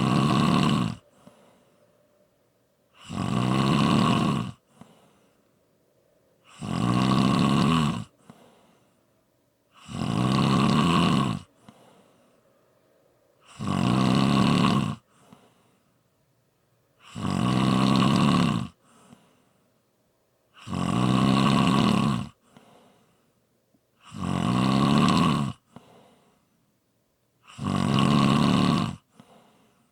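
A person snoring in a steady rhythm: nine loud snores, one about every three and a half seconds, each lasting about a second and a half, with a faint short breath out between them.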